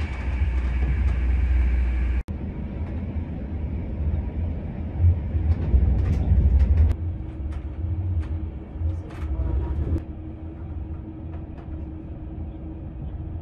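Passenger train running on the rails, heard from inside the carriage: a steady low rumble that breaks off for a moment about two seconds in. A run of sharp clicks and knocks from the wheels follows in the middle, with a steady hum, and the running noise grows quieter near the end as the train comes into a station.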